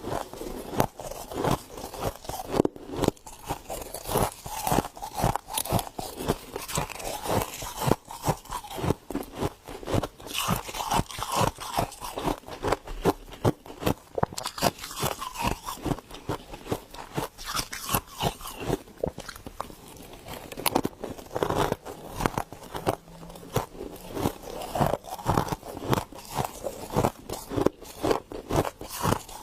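Freezer frost being bitten and chewed: a dense, irregular run of sharp, crisp crunches.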